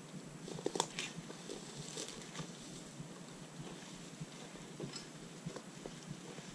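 Scattered clicks, knocks and rustling of footsteps on a stony path and a bicycle being manhandled down through dry brush, with the sharpest knocks about a second in and again at two seconds.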